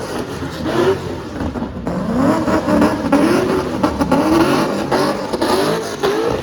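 Car engine revving hard again and again, its pitch climbing and dropping roughly once a second, as a car is driven hard in snow.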